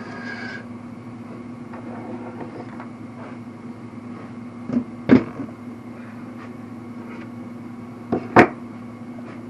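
Two pairs of sharp knocks, about five and eight seconds in, as the motorcycle engine and its parts are handled and turned during a top-end rebuild, over a steady low hum.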